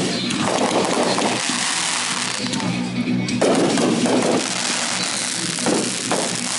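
Consumer fireworks going off: repeated bursts followed by dense crackling, with sharper crackles about five and six seconds in.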